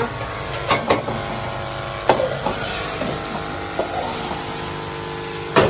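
Chicken and bitter gourd curry frying in a steel kadai, with a steady sizzle. A metal spoon knocks and scrapes against the pan a few times as it is stirred, most sharply about two seconds in and near the end.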